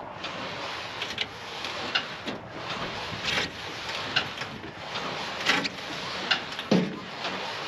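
A Land Cruiser being pushed by hand up over a steel car trailer's front-wheel stops: irregular knocks, clicks and scrapes from the truck and trailer over a steady hiss, with a heavier thump near the end.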